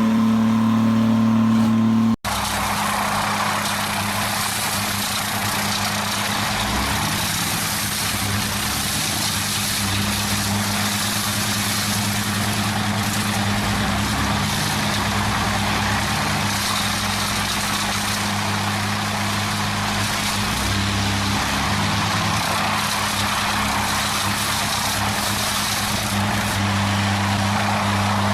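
Heavy forestry machine's engine running steadily, a constant low drone under a broad rushing noise. The sound drops out for an instant about two seconds in, then carries on.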